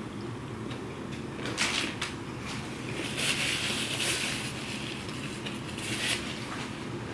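Close-miked eating: crisp bites and crackly crunching while chewing a turkey bacon sandwich, in a few short bursts with a longer stretch in the middle, over a steady low hum.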